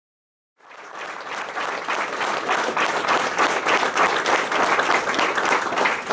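Audience applauding: dense, steady clapping from a small crowd that fades in about half a second in and builds over the next second.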